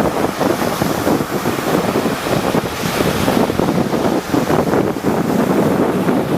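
Rough sea surf crashing and rushing continuously, with wind buffeting the microphone.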